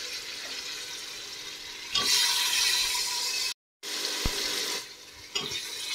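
Eggplant pieces sizzling in hot oil and tomato-spice masala in an open pressure cooker pot, the sizzle getting louder about two seconds in. A few light knocks come through, and the sound cuts out briefly just after the middle.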